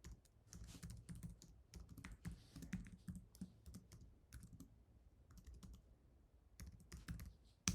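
Typing on a computer keyboard: quick runs of keystrokes with a short pause in the middle and one sharper, louder key press near the end.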